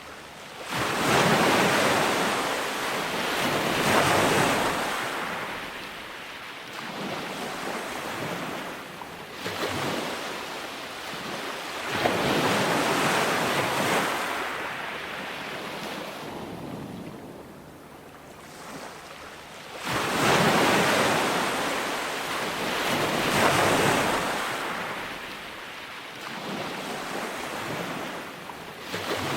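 Ocean surf breaking on a beach: waves swell up to a crash and hiss away as they wash out, again and again a few seconds apart, the biggest breaks about a second in, about twelve seconds in and about twenty seconds in.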